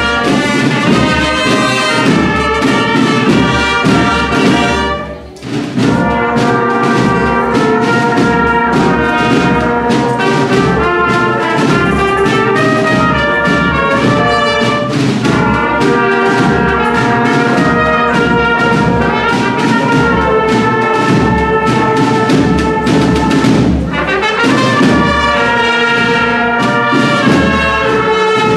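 Agrupación musical (brass and drum band) playing live: trumpets, cornets and trombones over snare and bass drums keeping a regular beat, with a brief break in the music about five seconds in.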